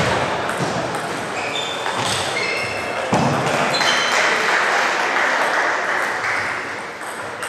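Table tennis ball clicking off bats and table during a short rally, against the murmur of a busy hall.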